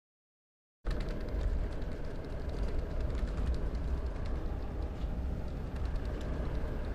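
Steady low rumble of a moving bus heard from inside its cabin, engine and road noise with light rattles, starting about a second in.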